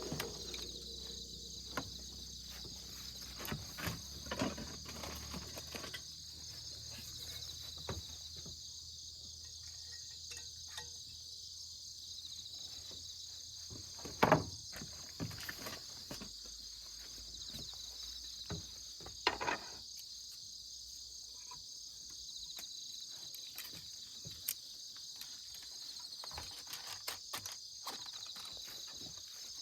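A chorus of insects chirring steadily in a high, continuous band, with scattered soft knocks and rustles; two louder knocks come about halfway through and again a few seconds later.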